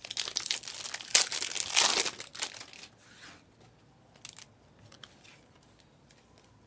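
Foil trading-card pack wrapper being torn open and crinkled, loudest about a second and two seconds in and ending after about two and a half seconds, followed by a few faint ticks.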